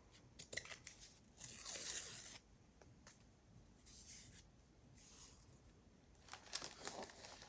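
A strip of textured wallpaper being torn by hand: one tear lasting about a second, then shorter rips and light paper rustling and taps near the end.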